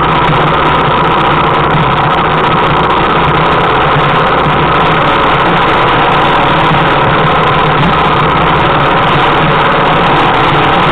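A single-cylinder four-stroke trail motorcycle engine running steadily, loud and close, while riding a rough track.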